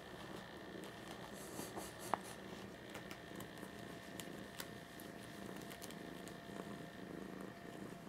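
Black cat purring steadily while being stroked, with scattered faint clicks and one sharp click about two seconds in.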